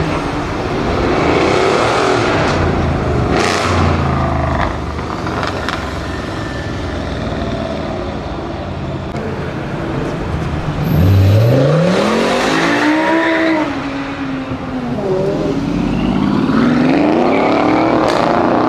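A Mercedes-AMG performance car's engine accelerating hard, loud throughout; about eleven seconds in the revs climb sharply and then fall away.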